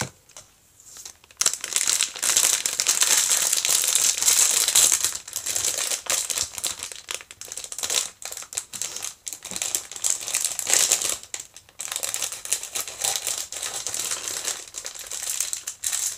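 Packaging of a Re-Ment miniature set crinkling and rustling as it is handled and unwrapped. It starts about a second and a half in and goes on in uneven surges.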